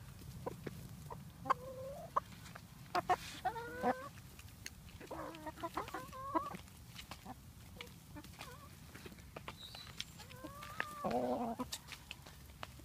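Backyard hens clucking and calling softly while they feed, several short calls, the loudest about eleven seconds in. Throughout there are sharp little taps of beaks pecking into cardboard egg cartons for crickets.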